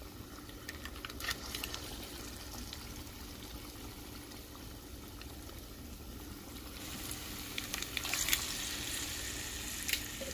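Plantain mosa fritters deep-frying in hot oil in a stainless steel pot: a steady sizzle and bubbling that grows louder about seven seconds in, with a few light clicks.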